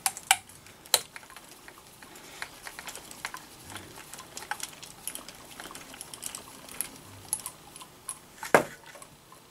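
Small irregular clicks and taps of a screwdriver and small metal parts while screws are taken out of a radio-controlled truck's chassis to remove its motor, with one sharper click about eight and a half seconds in.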